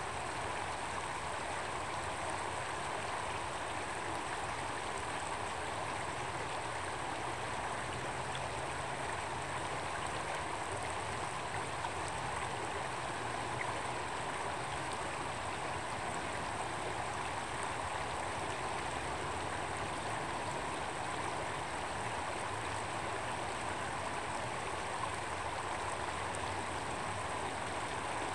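A shallow, rocky stream running over stones: a steady rush of water.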